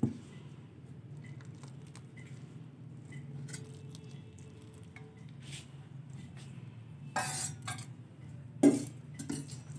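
A metal spoon stirring rice flour and hot water in a metal bowl, with soft scraping and scattered small clinks against the bowl. A longer scrape comes about seven seconds in, and a sharp clink, the loudest sound, comes near the end. A faint steady low hum runs underneath.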